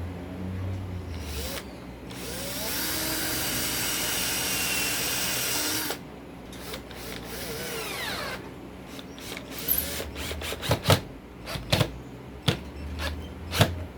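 A handheld power tool, most like an electric drill, runs steadily for about three and a half seconds, then is switched off and winds down. A few seconds later come a series of sharp knocks, several in quick succession.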